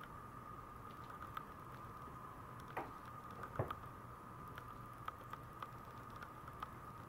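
Maltese puppies' claws ticking and pattering on a vinyl floor as they scuffle and move about, faint small clicks throughout. About three seconds in come two brief yips that fall in pitch.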